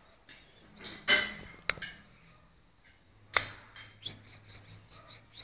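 Small bird chirping, short high chirps about four a second in the last second and a half, after a brief noisy burst, a click and a sharp knock.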